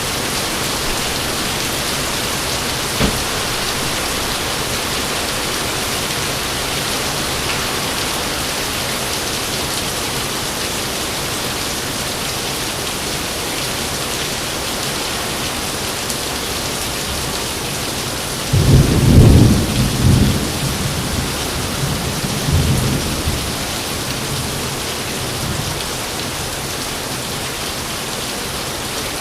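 Steady heavy rain falling, with a loud roll of thunder about two-thirds of the way through that rumbles low and dies away over several seconds; a single sharp crack comes about three seconds in.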